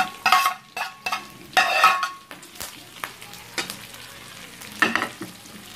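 Metal spatula scraping a sautéed paste off a pan into a wok, with several quick scrapes in the first two seconds. Then pork frying more quietly in its rendered fat, with a couple of spatula strokes near the end.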